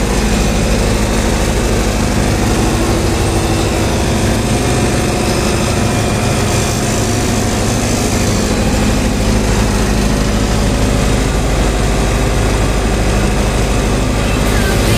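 Small boat's engine running steadily under way on the river, with no change in speed.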